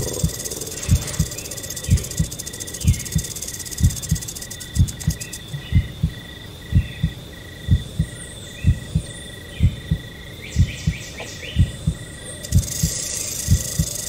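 Heartbeat recording beating about once a second, each beat a double thump, over a steady high rainforest insect chorus with a call pulsing several times a second.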